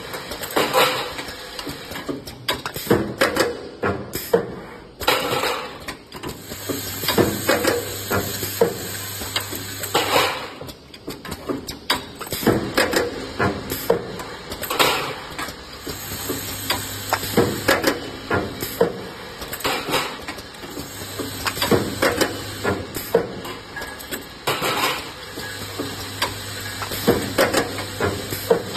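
Metallic clanking and clattering of tinplate drum lids being handled and fed through an automatic handle clip welding machine, with frequent sharp knocks of metal on metal. A low steady hum comes and goes in stretches of a few seconds.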